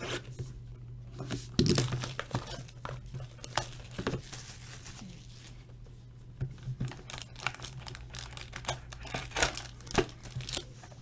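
Plastic shrink wrap crinkling and tearing as a sealed trading card box is unwrapped and opened, in irregular crackles and short rips.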